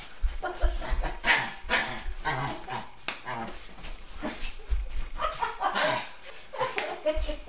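A dog barking repeatedly, in short barks about every half second.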